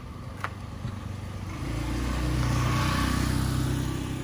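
A motor vehicle's engine runs and grows louder from about a second and a half in, peaking for a second or so before easing off slightly.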